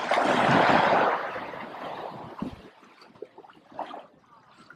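A small wave washing up on the shore: a broad hiss that is loudest in the first second, then draws back and fades.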